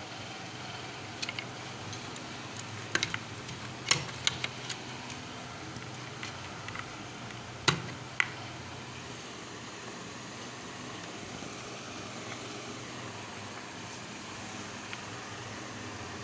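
Scattered short, sharp clicks and taps of small parts and tools being handled, loudest about four and eight seconds in, over a steady low fan-like hum.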